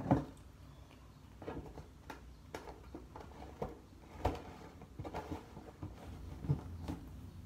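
Handling noise from slime-making supplies: scattered light knocks and clicks of containers being moved and set down, the loudest right at the start.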